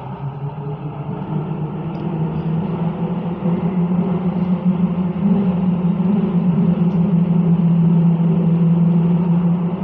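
Copenhagen Metro train running through a tunnel, heard from inside the carriage: a steady low rumble and drone that grows louder over the first five seconds, then holds.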